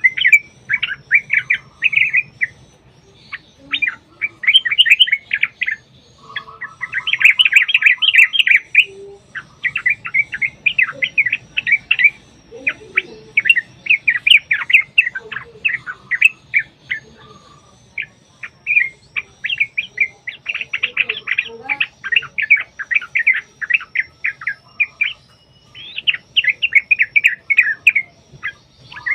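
Yellow-vented bulbuls singing in long, rapid chattering phrases of a second or two, separated by short pauses, with a faint higher twittering behind.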